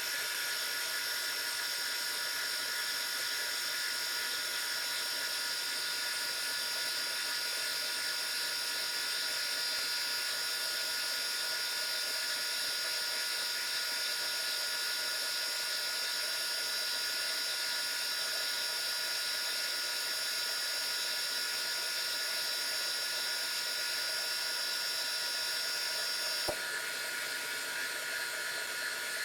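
Metal lathe running, turning a slightly hardened steel bar down from about 1 inch toward 5/8 inch: a steady whine with several high tones over a hiss. Near the end there is a click and the highest tone stops.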